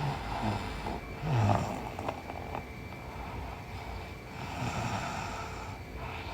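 A woman snoring in her sleep: two snores about three seconds apart, each a low buzzing drone carried on a breath of air noise.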